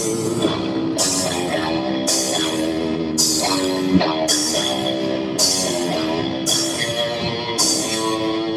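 Rock music with electric guitar and drum kit at a steady beat, a cymbal hit about once a second.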